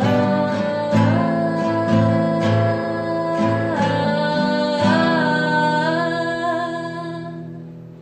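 Music track, a melody over a repeating low pulse, fading out over the last few seconds.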